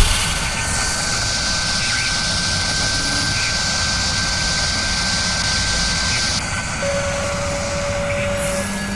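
Steady industrial machinery noise with a constant high whine and a high hiss that cuts off suddenly about six and a half seconds in.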